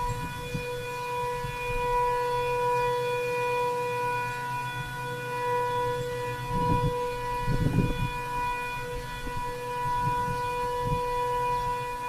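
Sentry 7V8-B outdoor warning siren sounding its steady alert tone, the signal of a tornado siren test. The level swells and dips gently. A few low rumbles come in near the middle.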